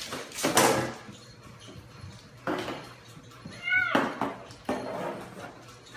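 A cat with a cup stuck over its head meowing once a little past midway, amid several knocks and scuffles as it bumps and scrambles against the wall.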